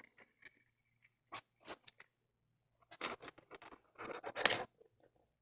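Small clicks and scratching from handling a Samsung Galaxy S5's parts and tools while plugging in a flex-cable connector, with a denser run of scraping from about three to four and a half seconds in.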